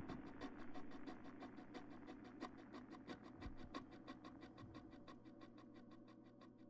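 Beer fizzing in the glass: a dense crackle of tiny bubbles popping in the foam, slowly fading away, over a faint steady low hum.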